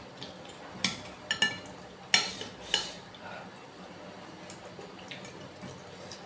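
Spoon clinking against a bowl while eating bakso soup: about five sharp clinks in the first three seconds, each ringing briefly.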